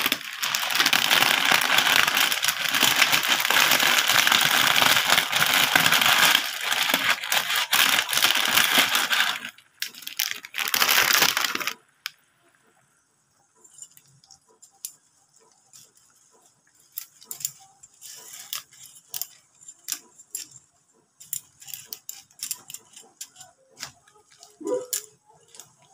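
Broth boiling hard in a metal wok, a loud steady bubbling hiss with a metal ladle stirring through it, which stops abruptly about twelve seconds in. After that come only faint scattered clicks and light knocks as noodles are turned in the wok.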